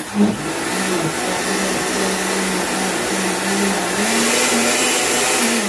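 Countertop blender running at speed, blending water, leafy greens and protein powder into a green liquid. It starts abruptly with a steady motor whine, and the pitch rises a little about four seconds in.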